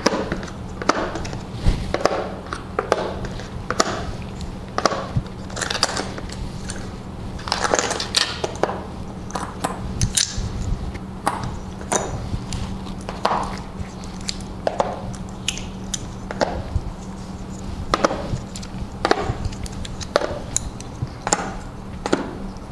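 Go stones tapped one after another onto a vertical demonstration Go board, a string of sharp irregular clicks about one or two a second, as captured stones are filled into the opponent's territory. A steady low hum runs underneath.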